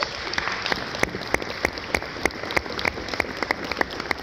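Audience applauding, with one person close by clapping loudly about three times a second over the crowd's claps.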